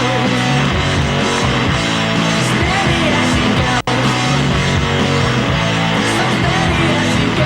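Rock music with guitar, which drops out for an instant about halfway through.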